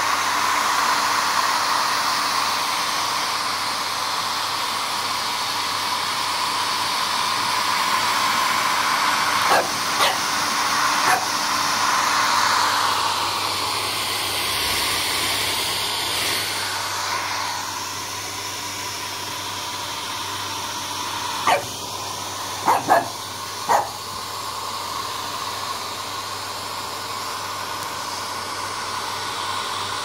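Handheld hairdryer blowing steadily while a French bulldog puppy barks at it: three short barks about ten seconds in, and four more a little after twenty seconds.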